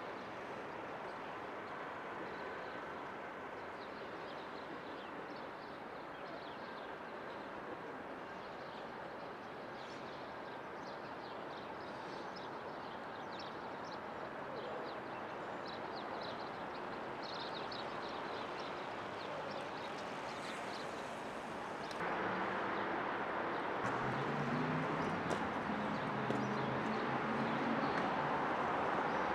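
Quiet city street ambience: a steady wash of distant traffic with birds chirping. About 22 seconds in it cuts to a louder, fuller ambience.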